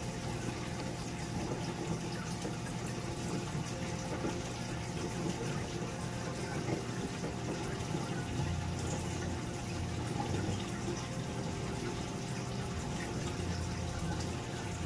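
Reef aquarium circulation running: a steady rush of moving water under a constant pump hum.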